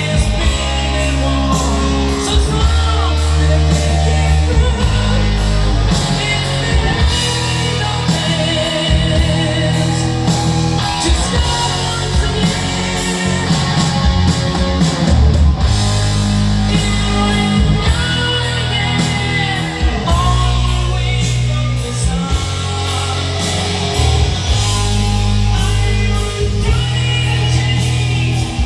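Rock music with singing, electric guitar, drums and heavy bass, played at maximum volume through Sony ZUX9 hi-fi speakers driven by a Philips FWC555 mini system.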